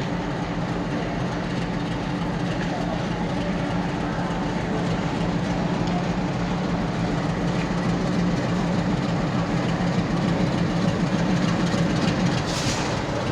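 WDM3D Alco diesel locomotive running: a steady, dense engine and train noise that grows a little louder in the second half, with a brief hiss near the end.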